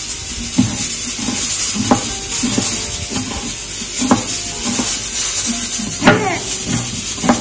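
Chef's knife chopping green bell pepper on a bamboo cutting board: short knocks of the blade on the wood at uneven intervals, over a steady hiss.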